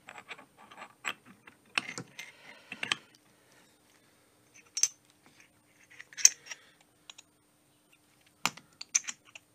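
Irregular light metallic clicks and clinks of the steel parts of a Spartan lunchbox locker being slid into a differential carrier and meshed together, with the sharpest clack about six seconds in.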